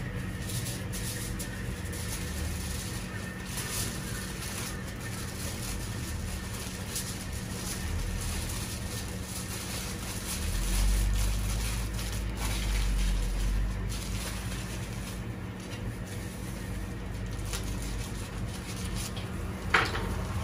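Outdoor town ambience, a steady background noise with scattered small clicks and knocks. About halfway through, a low rumble swells for a few seconds, and a single sharp knock comes near the end.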